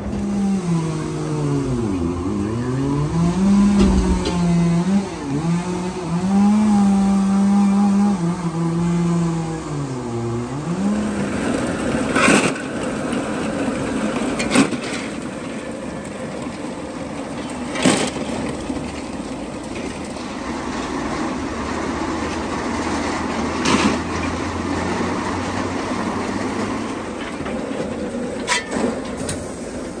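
Hi-rail utility truck's engine revving up and down as the truck drives along the rails, for about the first ten seconds. Then a steady mechanical rattle with several sharp metal clanks, from the coal conveyor beside the steam locomotive.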